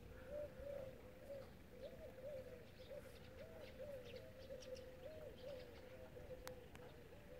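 Faint outdoor birdsong: a steady, low warbling call repeats without pause, with scattered short, high chirps over it. A single sharp click comes about six and a half seconds in.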